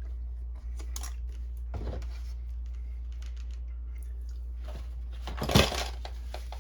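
Handling noise of small objects on a work surface: scattered light clicks and rustles, with a louder scuffing clatter about five and a half seconds in, over a steady low hum.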